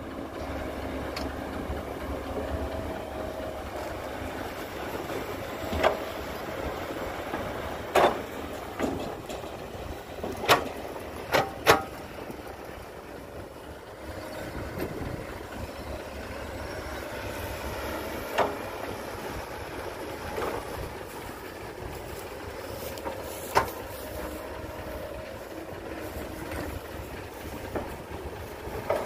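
Cat 312B hydraulic excavator's diesel engine running under load, its pitch rising and falling as it digs soil and swings to load a dump truck. Several sharp knocks come from the bucket working and soil dropping into the truck bed, the loudest just before and after the middle.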